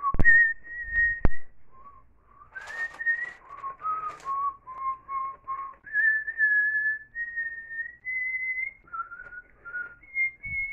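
A man whistling a slow melody of held notes, stepping up and down between pitches, with two sharp clicks near the start.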